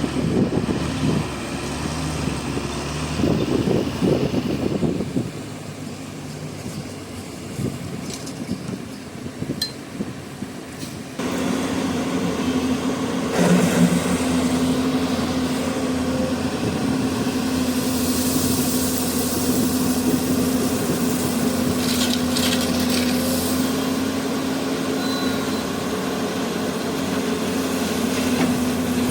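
Hyundai 215 hydraulic excavator's diesel engine working, rising and falling under load, with short clatters of stone. About a third of the way in it changes abruptly to a steadier, louder engine drone with a constant hum.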